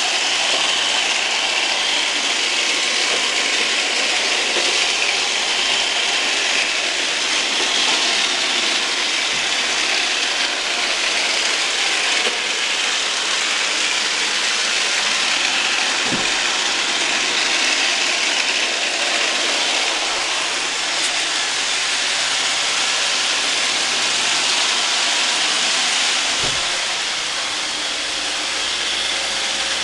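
Roomba robot vacuum cleaners running: a steady, hissing whir of their fans and brushes, with two dull thumps, one about sixteen seconds in and one near the end.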